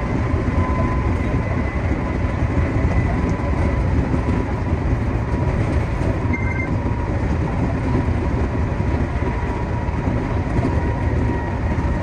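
Meitetsu 2200 series electric train running at speed, heard from inside the driver's cab: a steady rumble of wheels on rail with faint, thin high tones above it.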